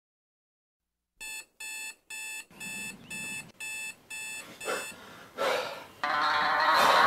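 Digital alarm clock beeping: seven short, evenly spaced beeps, about two a second, after a second of silence. A couple of soft knocks follow, then louder music comes in near the end.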